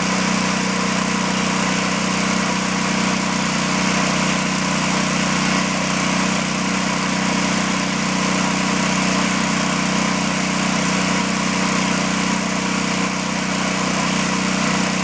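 One-cylinder, four-stroke Briggs and Stratton engine, a riding-lawnmower engine, running steadily under a light load of about 1 pound on a water brake dynamometer.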